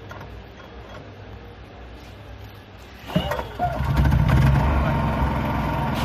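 A machine's motor starts with a sudden knock about halfway through and then runs steadily and loudly, after a few seconds of low hum.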